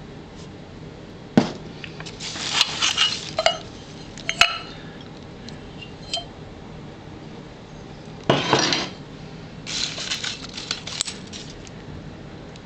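Knickknacks clinking and clattering against each other as they are rummaged through and lifted out of a box, in several separate bursts: a sharp knock about a second and a half in, clattering over the next two seconds, and more bunches of clinks in the second half.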